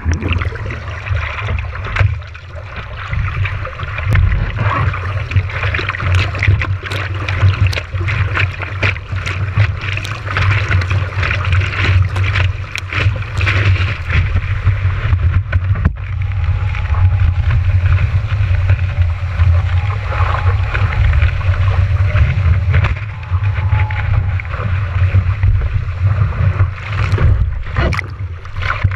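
Seawater splashing and rushing over a surfboard-mounted camera as the surfer paddles through whitewater. There is a steady low rumble from water and wind buffeting the housing, with many sharp splashes.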